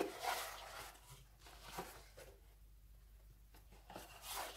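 Hands handling a homemade cardboard soundbar enclosure: faint rubbing and scraping of cardboard against skin, in a few short bursts, the loudest at the start.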